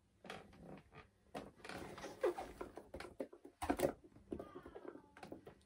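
Cardboard product box being handled and pried open by hand: scattered taps, knocks and rubbing on the box, with one louder thump a little past halfway.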